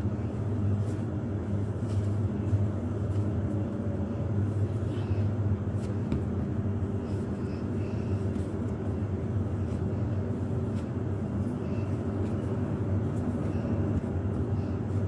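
A steady low mechanical hum, with faint thuds and rubbing from a large ball of yeasted binangkal dough being kneaded by hand on a floured counter.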